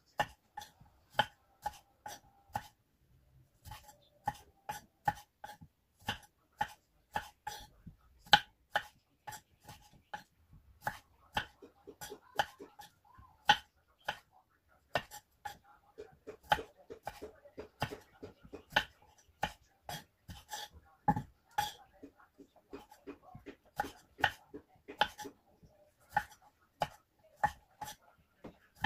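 Knife chopping on a cutting board: a long run of sharp, regular strokes, about two to three a second, with a short pause about three seconds in and quicker runs later.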